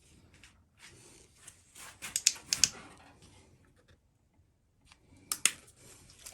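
Handling noises of small objects on a work surface: a scatter of light clicks and taps, loudest in a quick cluster about two seconds in and a single sharp click about five and a half seconds in.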